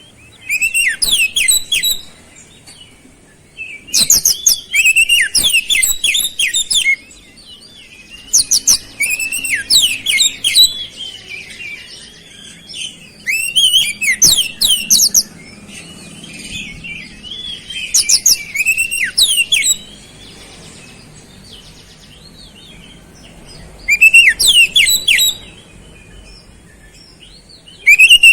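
Oriental magpie-robin singing loudly in repeated bursts of rapid, high chirping phrases, each a second or two long with short pauses between, its song laced with imitations of flowerpecker calls.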